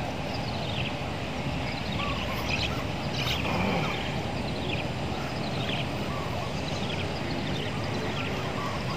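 Repeated short, high, falling chirps of small birds, several a second at times, over a steady low background rush.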